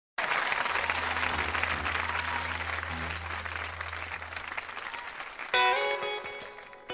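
Audience applauding, dying away, then a guitar starts picking the song's opening notes about five and a half seconds in.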